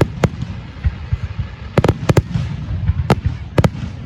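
Aerial fireworks bursting: about eight sharp bangs at uneven intervals, several coming in quick pairs, over a constant low rumble.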